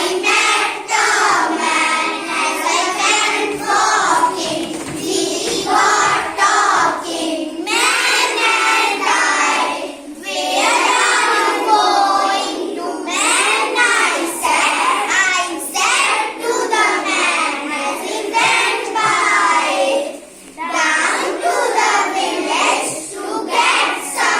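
Young children singing a rhyme together in a sing-song tune, in phrases with short pauses for breath about ten and twenty seconds in.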